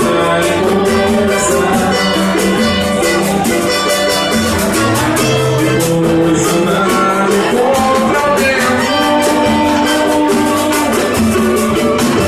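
Brazilian popular music band playing: percussion keeps a quick, steady beat under plucked strings, with voices singing.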